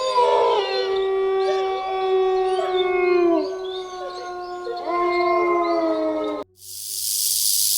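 Wolves howling in chorus: several long, overlapping calls at different pitches, some sliding down at their ends. About six and a half seconds in they cut off abruptly and a steady hiss begins.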